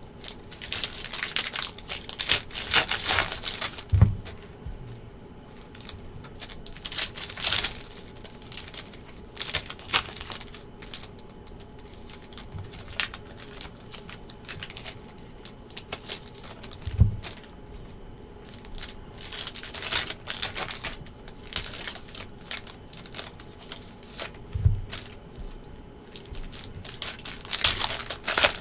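Trading-card packs being torn open, their foil wrappers crinkling in irregular spells, with card-handling clicks between and a few dull thumps on the table.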